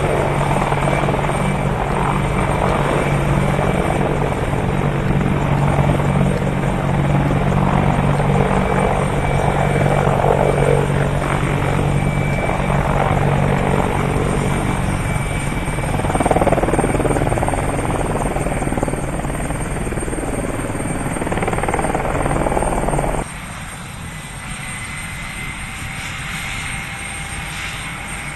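Aircraft engine running nearby: a loud, steady drone with a low hum. About 23 seconds in it drops off abruptly, leaving a quieter engine sound whose pitch slowly rises.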